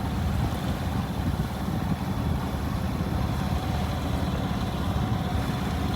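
A sailboat's engine running steadily under way: an even low rumble with a faint steady whine above it.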